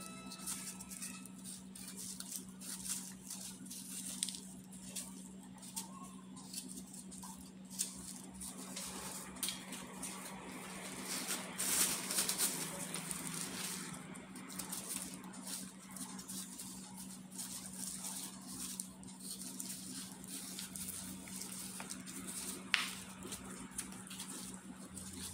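Small kitchen knife cutting and peeling fruit by hand: scattered soft clicks, scrapes and taps of the blade against the fruit, with one sharper click near the end. A steady low hum runs underneath.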